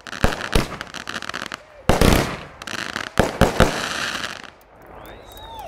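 Consumer fireworks going off close by: a dense crackle full of sharp pops, with a louder burst about two seconds in, dying away after about four and a half seconds. A voice calls out near the end.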